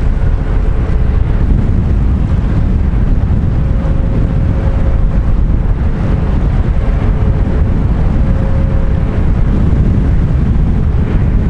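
Wind buffeting the microphone in a steady low rumble, with a faint steady hum from a ship's engine in the middle of the stretch.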